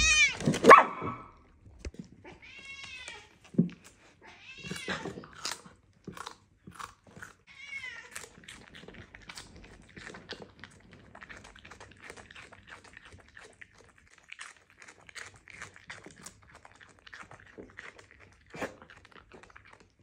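A Bengal cat meowing several times in the first eight seconds or so, each call arching up and down in pitch. Then a mini dachshund chews salad leaves, with soft, scattered crunches.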